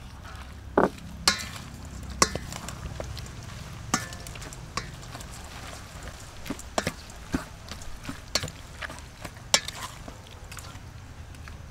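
Wooden spatula stirring and tossing squid, shrimp and glass noodles in salad sauce in a stainless steel bowl: wet squelching and scraping, with irregular sharp knocks about once a second as the spatula hits the bowl.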